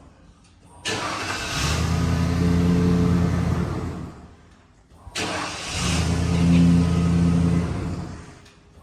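1995 Ford F-150 engine started twice: each time it cranks and catches abruptly, runs for about three seconds, then is switched off and dies away to near silence. This is a repeated start-and-stop test of the starter circuit after a bad ground was fixed.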